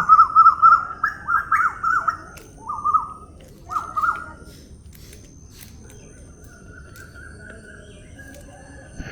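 A bird calling: several bursts of quick repeated chirps in the first four seconds, then a fainter held note.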